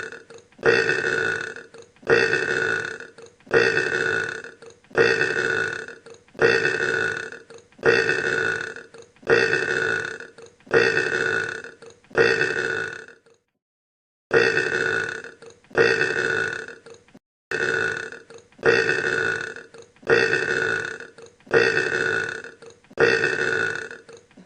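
A man's long, throaty belch, the same burp repeated over and over at about one every second and a half, with a brief pause about halfway through.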